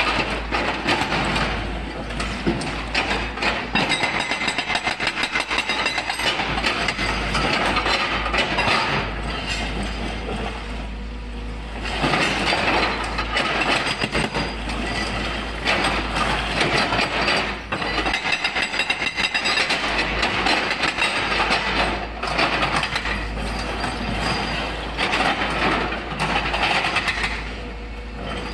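Epiroc (Atlas Copco) hydraulic rock breaker on a Volvo 210 excavator hammering stone, a fast, steady stream of blows with a few short pauses.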